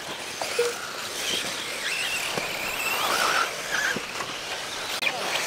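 Large-scale electric RC buggies racing on a dirt track: motor whines rising and falling in pitch as the cars pass, over a steady wash of tyre and dirt noise with a few clicks.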